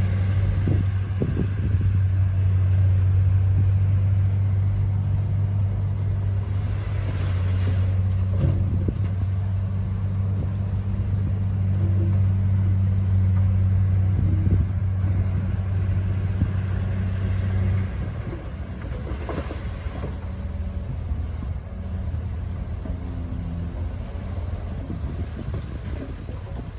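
Komatsu bulldozer's diesel engine running with a steady low drone and a few short clanks, then dropping away suddenly about two-thirds through, leaving a quieter, rougher rumble.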